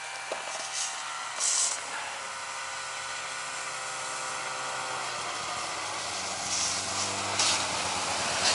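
Snowmobile engine running steadily and growing louder toward the end, with a few brief rustling noises over it, the loudest about a second and a half in.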